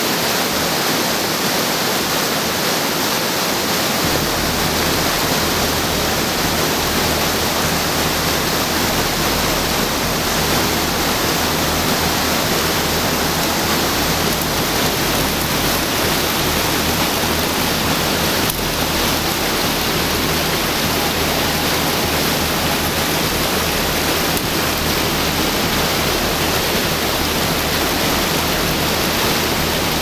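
Steady rushing of falling water, a waterfall's constant roar, with a deeper low rumble joining about four seconds in.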